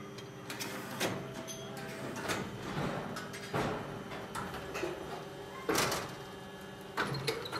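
Aluminium die-casting machine running with a steady hum, broken by about five sharp metal clanks and knocks as the die works and the casting is handled; the loudest clank comes about six seconds in.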